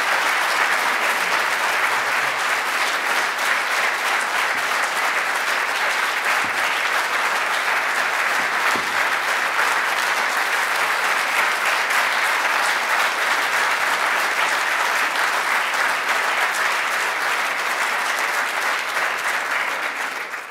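A large audience applauding steadily, many hands clapping at once; it fades out right at the end.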